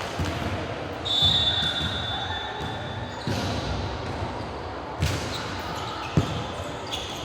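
Basketball game in a gym: a referee's whistle is blown about a second in and held for about two seconds, over the thud of the ball bouncing on the court and players' voices echoing in the hall.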